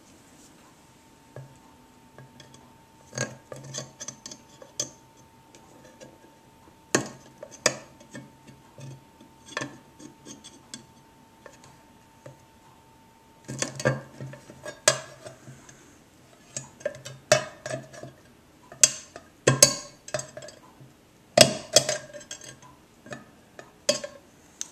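Pliers working the wire hanger of a cowbell's clacker: irregular metallic clicks and clinks of tool on wire and on the bell's metal shell, coming in clusters.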